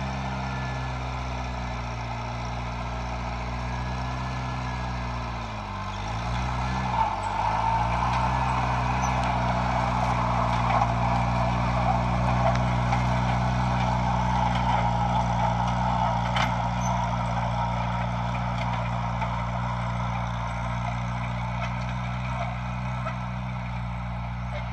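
Farmall Cub tractor's small four-cylinder engine running steadily as it pulls a cultivator down a garden row. It grows louder about a quarter of the way in as the tractor passes close by.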